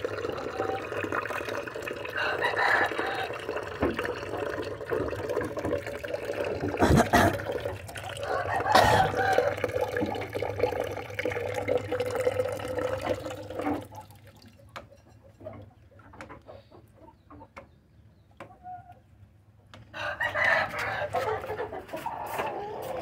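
Roosters crowing and chickens clucking, several loud calls, over water splashing from a leaking pipe into a plastic bucket. The water stops abruptly about two-thirds of the way through, and the chicken calls pick up again near the end.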